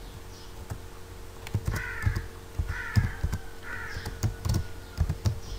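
Computer keyboard keys clicking as text is typed, with a bird calling three times about a second apart from around two seconds in.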